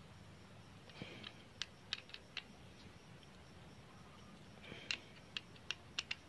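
Screwdriver clicking against the metal screws and body of a chainsaw carburettor while its fuel pump cover is screwed down after a new pump diaphragm is fitted. The clicks are faint and sharp, in two bunches, one about a second in and another near the end.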